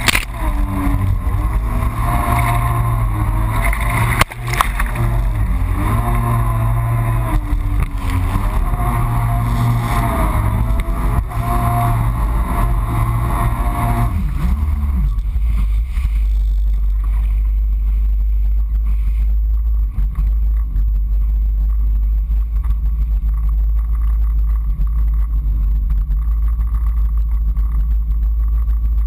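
2008 Yamaha FX Cruiser HO jet ski's four-stroke engine running under throttle, its pitch rising and falling over a rushing noise. About halfway through the engine note falls away and settles to a low, steady idle.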